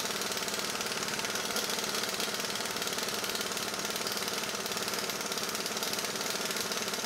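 Impact wrench hammering steadily as it drives the forcing screw of a clamshell bearing puller, pulling a carrier bearing off a Dana 25 differential carrier.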